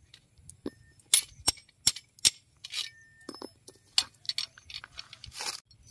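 Irregular sharp metallic clicks and clinks of a steel ring spanner knocking against the nuts and bolts of a galvanized bolted strain clamp as the nuts are worked by hand.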